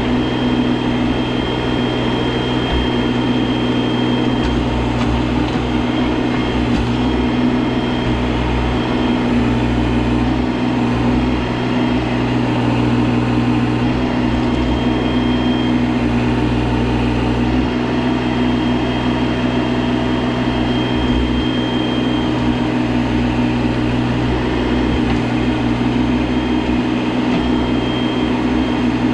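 Mahindra eMax 20S sub-compact diesel tractor engine running steadily, with a faint high whine coming and going.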